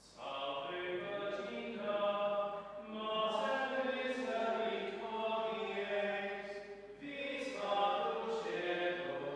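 Slow hymn singing in a church, long held notes sung in phrases with short breaks about three and seven seconds in.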